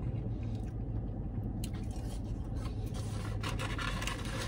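A man eating fries: chewing and handling a paper fries carton, with soft irregular rustling and scraping from about one and a half seconds in. A steady low hum runs underneath inside the car cabin.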